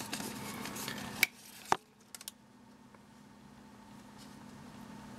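Light handling of a pair of plastic sport sunglasses: two sharp clicks about a second and a half in, followed by a few faint ticks.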